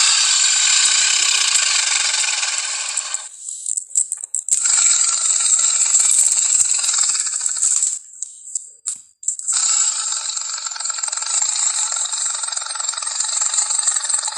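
Film monster sound effect: a harsh, rattling hiss that comes in three long stretches with short breaks between them, about three seconds in and again about eight seconds in.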